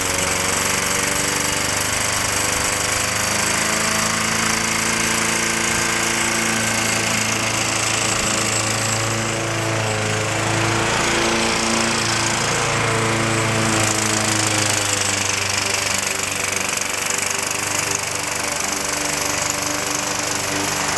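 Single-cylinder engine of a walk-behind gas lawn mower running steadily while mowing, its speed wavering slightly up and down.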